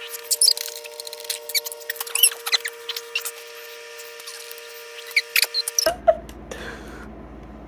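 Many short, high-pitched squeaks and chirps in quick succession over a steady low hum, cutting off abruptly about six seconds in, followed by a few light clicks.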